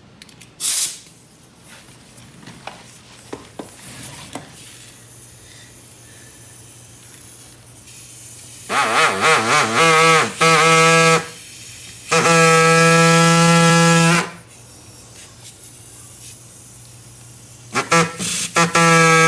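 Small electric 'zip saw' fitted with a coarse hacksaw blade, cutting lugs off a rubber lawnmower tire. It runs with a steady buzzing tone in three runs of two to three seconds, stopped in between, the first wavering in pitch as it gets going; a short sharp noise comes just under a second in.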